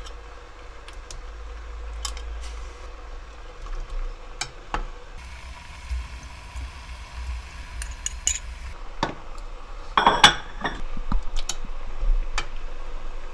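Metal ladle clinking and knocking against a ceramic bowl and a steel pot as whole sandfish are scooped into the pot. The clinks are scattered, with the loudest cluster of knocks about ten seconds in, over a steady low hum.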